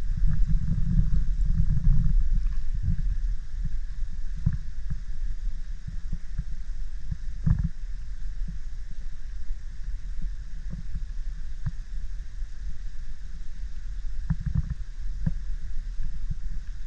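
Wind buffeting the microphone as a low rumble, heaviest in the first couple of seconds, with a few scattered soft taps.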